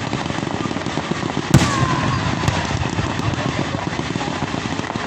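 Fireworks going off: a dense, steady crackling, with one loud bang about a second and a half in.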